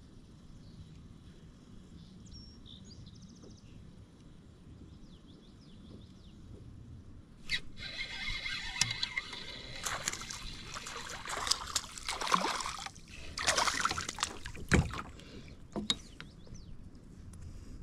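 A hooked fish thrashing and splashing at the water's surface beside a kayak: a run of loud, irregular splashes that starts about seven seconds in, after a quiet stretch.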